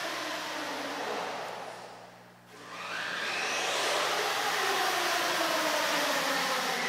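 Brushless electric motor of a Thunder Tiger MT4-G3 1/8-scale RC monster truck whining as the truck drives. It fades away to a low point about two and a half seconds in, then whines up again in pitch as it accelerates and runs on at speed.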